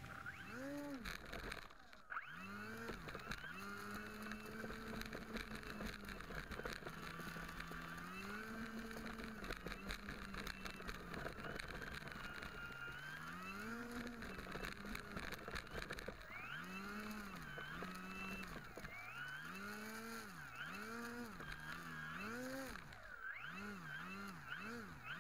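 Electric motor and propeller of a Hobbyking 3D Monster Yak 54 model plane, heard through its onboard camera, whining in repeated swells that rise and fall in pitch, faster and more often in the second half.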